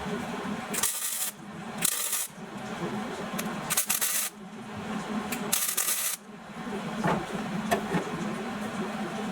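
MIG welder laying four short tack welds, each a half-second burst of crackling hiss, about a second, two seconds, four seconds and six seconds in, over a steady low hum.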